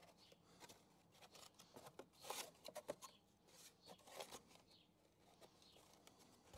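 Faint rustling, scraping and light knocks of cardboard strips being slotted into a thin wooden fruit crate as row dividers, busiest a little past two seconds in and again around four seconds in.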